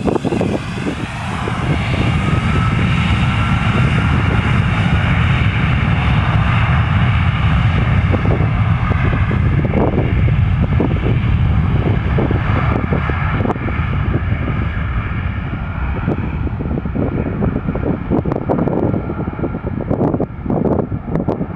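Jet airliner taking off: its engines at takeoff thrust give a loud, steady rumble with a whine on top, and the higher tones fade over the second half as it pulls away.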